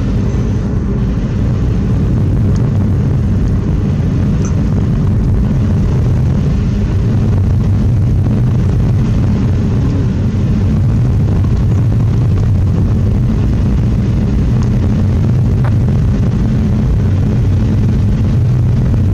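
Steady drone of a car driving along a road, heard from inside the cabin: a low, even hum of engine and road noise.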